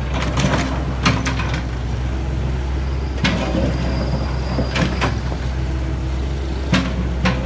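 Heavy vehicle engine running steadily at a low, even hum, with irregular metallic clanks and knocks every second or two.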